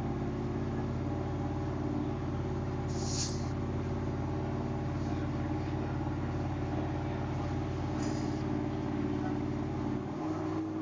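Car engine idling steadily, with brief hissing bursts about three and eight seconds in; its low hum drops away near the end.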